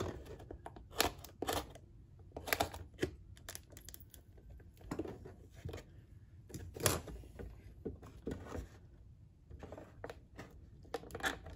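Cardboard toy packaging being cut and handled: scattered short clicks, snips and scrapes a second or two apart as a small cutter works at the tape holding the cars in the box insert.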